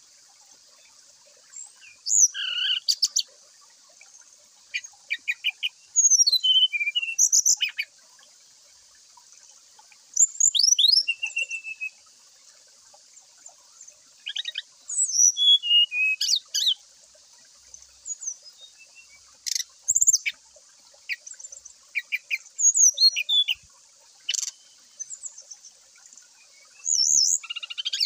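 Brown-chested jungle flycatcher (sikatan rimba dada coklat) singing in short bursts of high, quick whistled phrases with rapid up-and-down slurs and trills, with gaps of a few seconds between bursts, over a steady faint high hiss.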